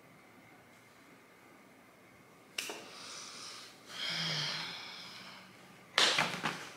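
A woman's wordless reaction of disgust: after a couple of seconds of quiet room tone, a sudden breathy exhale, a longer breathy sound with a faint hum about four seconds in, and a short, sharp, louder breath about six seconds in.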